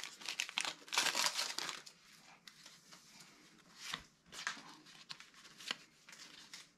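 Wax paper wrapper of a 1982 Topps baseball card pack being torn open and crinkled. The crackling is strongest in the first two seconds, then gives way to fainter rustling and a few light clicks as the stack of cards is handled.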